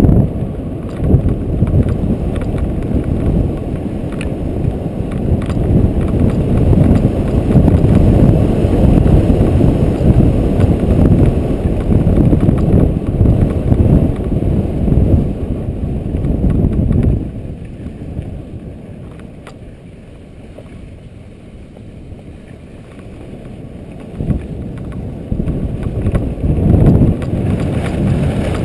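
Wind buffeting a GoPro's microphone during a downhill ski run, a loud low rumble mixed with skis scraping over snow. The rumble eases off for several seconds about two-thirds of the way through, then builds again.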